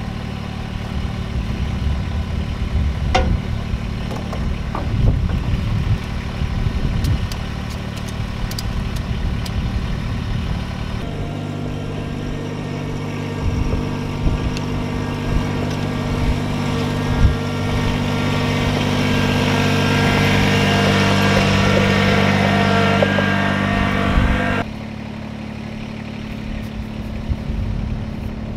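Compact tractor engine running steadily as it carries a load in its front loader, with a few knocks and clatters. About a third of the way in the engine gets louder and swells further, then drops abruptly to a quieter running near the end.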